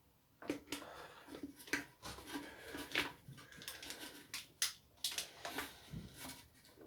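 Irregular clicks, taps and rustles of small plastic engine parts and hand tools being handled on a bench.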